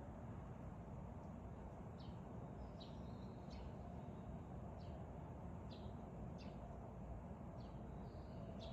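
Small birds giving short, high, downward chirps at dawn, about one every half second to a second from about two seconds in, over a steady low background noise.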